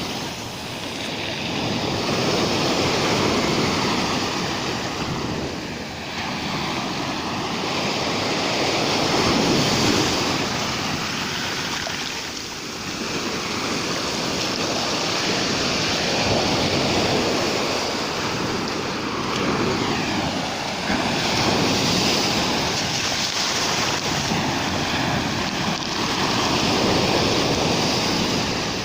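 Rough sea surf breaking on the shore, a steady rush that swells and ebbs every few seconds as the waves come in.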